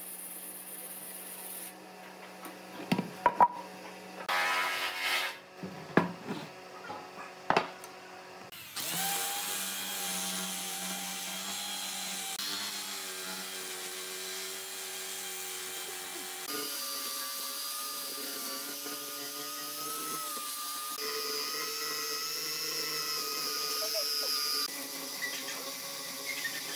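An electric drill fitted with a sanding disc runs steadily against the bark face of a log, its motor pitch shifting a few times. Before that, a band saw hums briefly, followed by a few sharp knocks.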